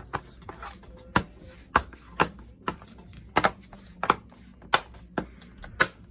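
Plastic snap clips of a Samsung Chromebook 4's case clicking into place one after another as the case is pressed back together, sharp clicks about twice a second.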